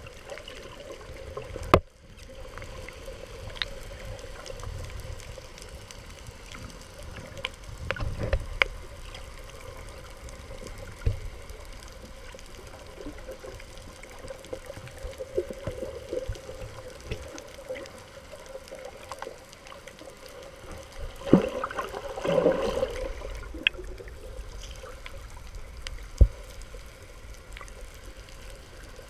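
Muffled underwater water noise picked up through a GoPro's waterproof housing, with a few sharp clicks and a louder stretch of sloshing about three-quarters of the way through.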